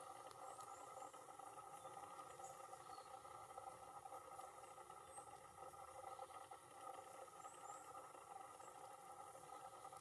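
Near silence with a steady faint background hum, broken by a few faint, very high, short bird call notes, a quick pair about half a second in and another pair about seven and a half seconds in.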